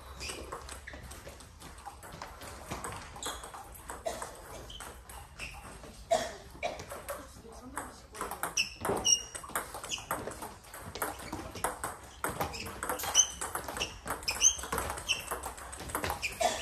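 Table tennis rally: the ball clicking sharply off the paddles and the table in quick succession, the hits coming faster and louder in the second half.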